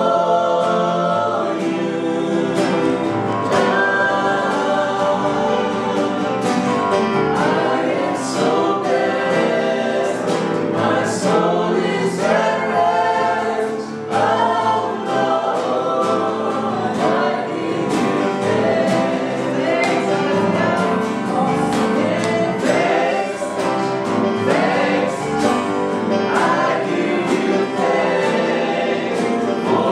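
Gospel worship song: several voices singing together like a choir over steady held accompaniment chords.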